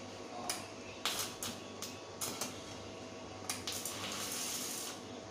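Sharp metal clinks and knocks, about eight of them, as metal parts or tools are handled, followed by a steady hiss from about three and a half seconds in.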